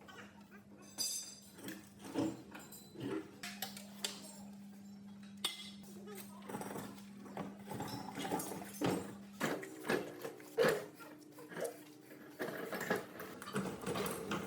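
Workshop handling sounds: irregular clinks and knocks of metal tools and parts, over a low steady hum that stops about nine and a half seconds in.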